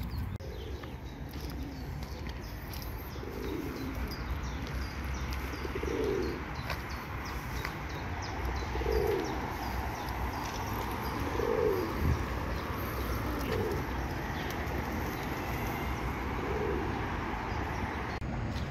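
Pigeon cooing: short low coos repeated about every two to three seconds over steady background noise.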